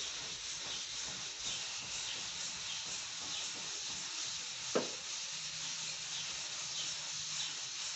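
Sandpaper scraping across a Volkswagen Beetle's steel door panel in repeated strokes, about two a second. A sharp click sounds about five seconds in, and a faint low hum follows.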